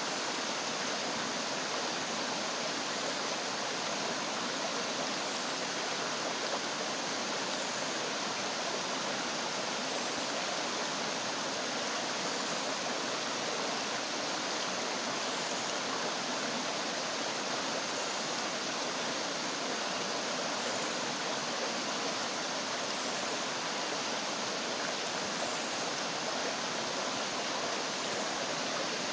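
Shallow rocky stream flowing, a steady rushing of water with no change in level.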